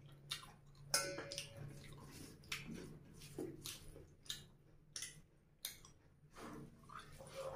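Close-up eating sounds: wet chewing and lip smacks, with fingers squishing rice and curry on a plate, in irregular sharp smacks.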